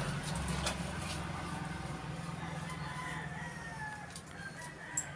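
A rooster crowing: one long drawn-out call, slowly falling in pitch, starting about halfway through. A few sharp clicks come near the end, over a steady low hum.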